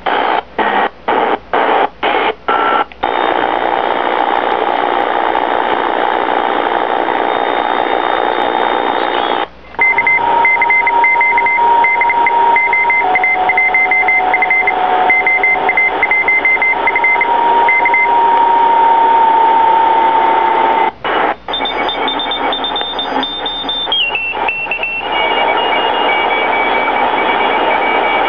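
Sony ICF-2002 shortwave receiver's speaker giving static hiss with steady whistling carrier tones as it is tuned across the band. The sound cuts out briefly about eight times in the first three seconds as the tuning steps, and twice more later. In the middle stretch an on-off tone keys over the hiss.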